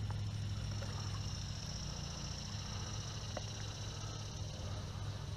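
Steady outdoor background at the water's edge: a constant low hum with a thin, steady high-pitched buzz above it, and a couple of faint ticks.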